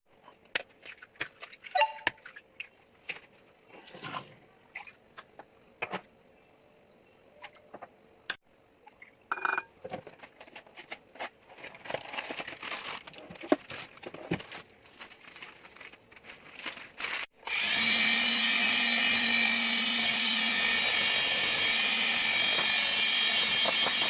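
Scattered clicks and knocks of kitchen utensils, then about seventeen seconds in an electric mixer switches on and runs steadily at a constant speed, beating chocolate cake batter.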